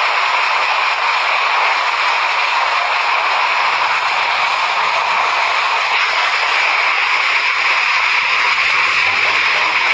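Hailstorm: hail and heavy rain falling in a dense, steady patter.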